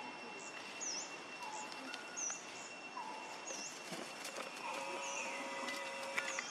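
Outdoor ambience with a bird repeatedly giving short dipping chirps, about one a second, over a steady high-pitched whine. A few short, flat lower whistles come in, the last held for over a second before the end.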